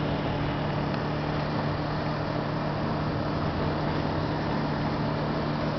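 Steady running noise of a car on the move: a constant low engine hum over road noise.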